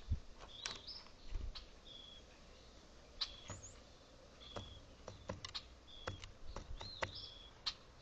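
Downy woodpecker pecking at seed on a feeder tray close to the microphone: sharp, irregular taps. Between them a bird repeats short, high whistled notes about every second.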